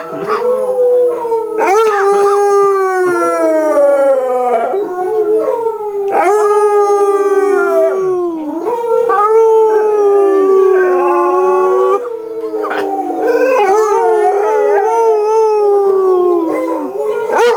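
Basset hound howling: a string of long howls, each starting high and sliding down in pitch, with brief breaks between them.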